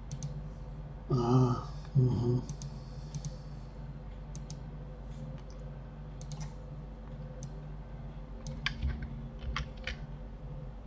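Scattered single computer keyboard and mouse clicks over a low steady hum. A voice makes two short sounds about a second in.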